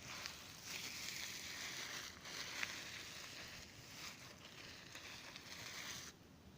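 Bubble wrap crackling and rustling as it is pressed, with a few sharper pops, stopping about six seconds in.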